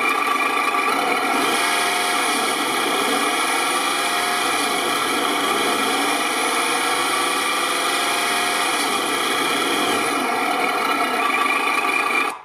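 RC Humvee's onboard sound module playing a simulated truck engine through its speaker, its pitch rising and falling as the throttle is worked, with simulated gear shifts. It is loud and cuts off suddenly near the end.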